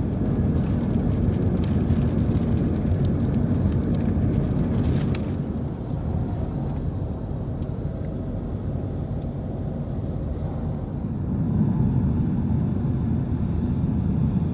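Steady low rumble of road and engine noise heard inside a moving car, with a light crackling over the first five seconds.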